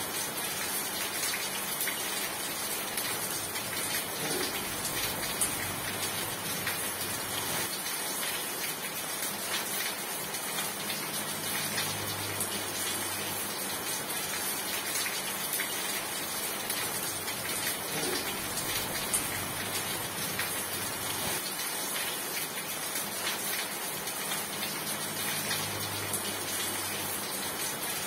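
Steady rain falling: a dense, even hiss of countless drops that holds at the same level throughout.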